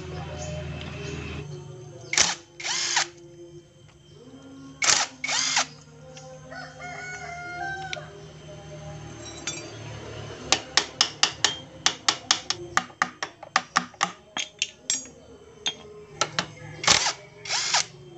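Cordless power driver spinning bolts out of a Yamaha Vega ZR engine in short paired bursts, about 2 s, 5 s and 17 s in. A rapid run of sharp clicks comes between the last two pairs.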